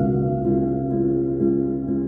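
Calm background music of slow, held notes that ring on and overlap.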